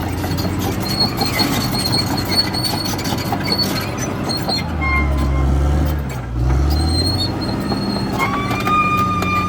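CAT D6R XL bulldozer's diesel engine running under load, with squealing and clanking from its steel tracks; a longer squeal starts about 8 seconds in.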